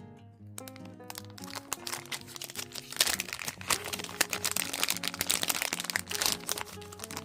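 Packaging being crinkled and crumpled by hand as items are unwrapped, a dense crackling that builds about a second and a half in, is loudest through the middle, and eases off near the end, over soft guitar background music.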